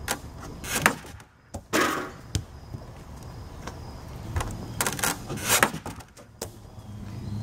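Irregular wooden knocks and thumps from a homemade bungee-powered wooden catapult being handled, with a short rustling swish about two seconds in. The loudest knocks come a little under a second in and again near the middle of the second half.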